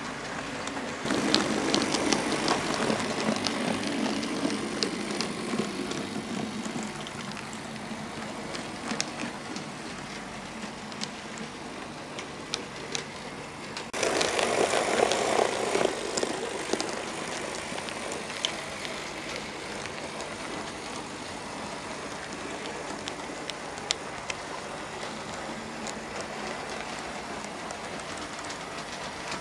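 OO gauge model train running on the layout track: the wheels rattle and tick over the rail joints over a low steady motor hum. It gets suddenly louder twice, about a second in and again about halfway through, as coaches pass close.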